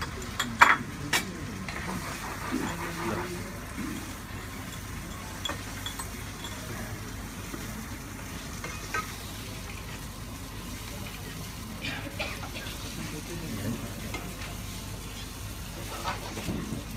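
Food sizzling in a frying pan while a spatula stirs and scrapes through it. A few sharp clinks of utensils come in the first second or so.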